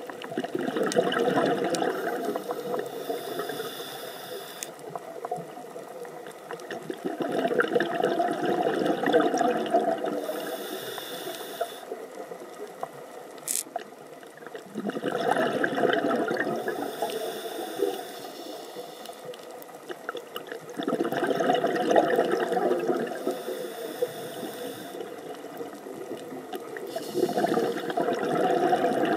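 Scuba diver's regulator breathing heard underwater: a rush of exhaled bubbles about every six seconds, five times, with a quieter hiss between the bursts.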